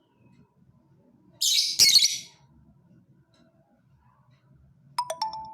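Lovebird giving one loud, harsh, shrill screech lasting about a second. Near the end come a few sharp clicks and a brief ringing tone.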